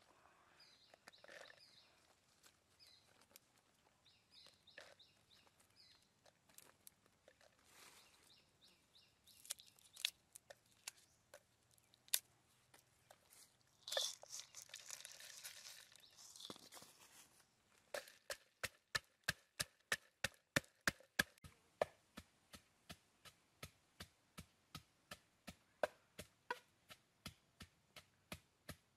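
Food preparation sounds: scattered taps, rustling and crunching, then steady chopping at about three even strokes a second from about eighteen seconds in. Faint bird chirps in the first few seconds.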